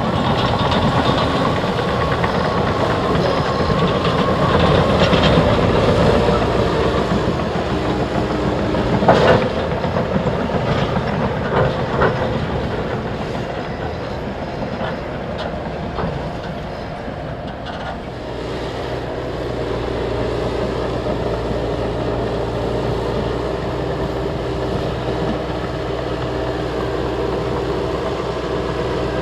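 Liebherr crawler bulldozers working: diesel engine running under load with the steel tracks clattering, and sharp metal clanks about nine and twelve seconds in. Past the middle the noise eases into a steadier engine note.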